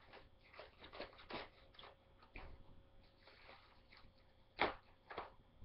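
Irregular clicks and crackles of a shipping package of DVD cases being handled and opened, with the loudest knock about four and a half seconds in.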